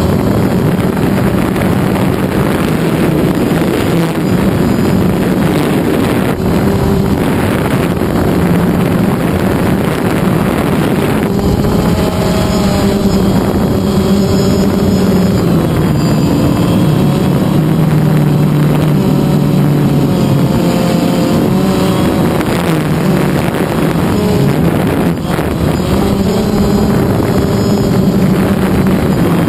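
DJI Phantom quadcopter's motors and propellers, a loud steady buzzing whine heard from the GoPro mounted on the drone. The pitch steps up and down every few seconds as the drone manoeuvres, with some wind noise on the microphone.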